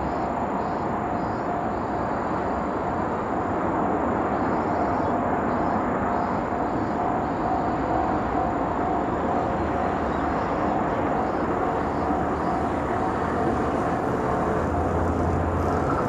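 Steady outdoor traffic noise with a steady whine. Near the end, the low engine drone of an approaching JR DD51 diesel locomotive hauling a freight train comes in and grows.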